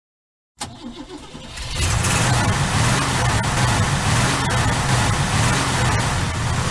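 A car engine starting: a short cranking stretch begins about half a second in, then the engine catches and runs loudly.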